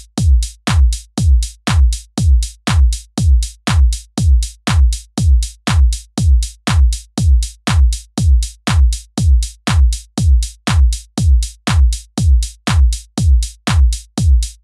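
Background electronic music: a drum-machine kick drum playing alone, a steady beat at about two strokes a second.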